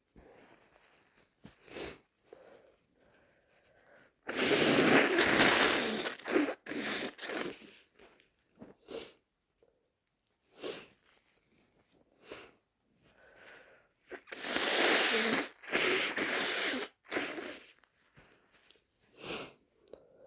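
A person with a heavy cold sneezing and blowing their nose. There are two long, loud blows, one about four seconds in and one near fifteen seconds, with shorter sharp sneezes and sniffs between them.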